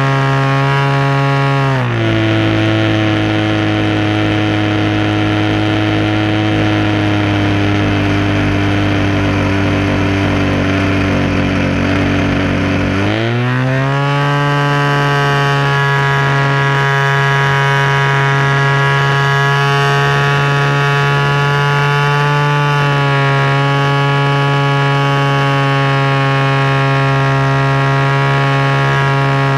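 DLE 20 single-cylinder two-stroke petrol engine of a radio-controlled aerobatic plane turning a 16x8 propeller, heard close up from a camera bolted under the fuselage. It runs at high throttle, is throttled back about two seconds in, and runs lower for about eleven seconds. Then it opens up again and holds high power to the end, with a brief dip past the middle.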